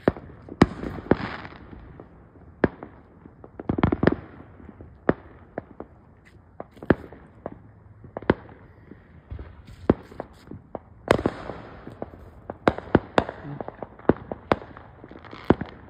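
Fireworks going off: an irregular series of sharp bangs and pops, often more than one a second, with a few louder stretches of crackling.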